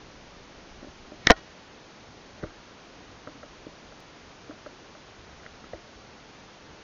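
One sharp click about a second in, followed by a scatter of faint, irregular ticks and taps.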